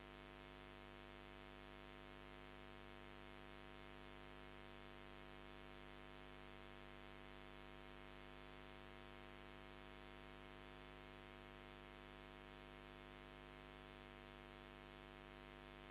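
Near silence: only a faint, steady electrical hum that does not change.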